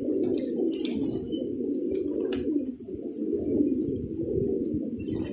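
A flock of domestic pigeons cooing, many birds at once in a continuous overlapping chorus.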